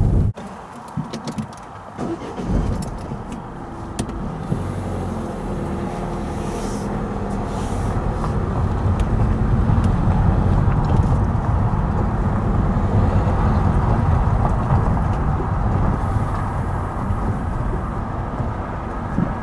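A car's engine running at low speed with tyres rolling over a gravel track, a few small clicks and crunches in the first seconds, easing off slightly near the end as the car draws up.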